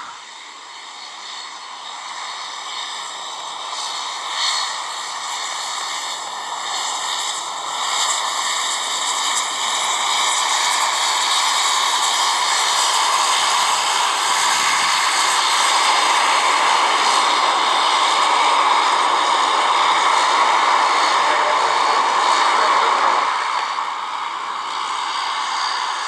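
Bombardier Q400 turboprop taxiing, its two turboprop engines and six-bladed propellers giving a steady whine with several held high tones. It grows louder through the first half and eases off near the end.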